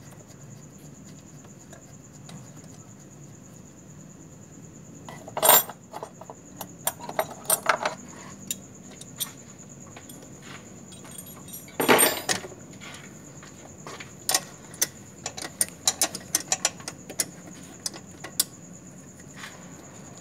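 Metal hand tools clinking and clattering, as if someone is rummaging through them during a car repair. There are two louder clanks, about five and twelve seconds in, with scattered lighter clicks between and after.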